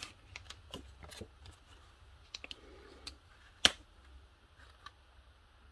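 Light clicks and taps of cardstock and acetate being handled and set on a cutting mat, with one sharper tap a little over three and a half seconds in.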